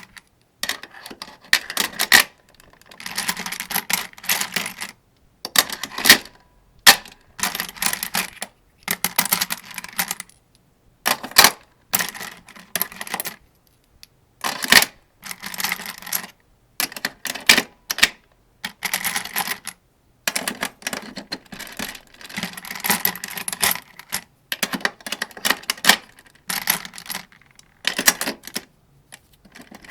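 Metallic clicks and rattles of rifle cartridges being pushed one by one into a 75-round AK-47 drum magazine. They come in short clusters with brief silent pauses between them.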